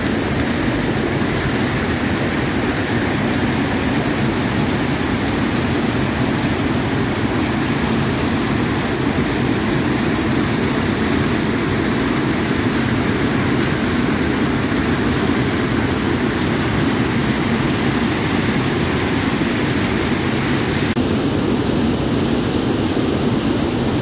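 River cascade's whitewater crashing over rocks close by: a loud, steady, deep rush of water.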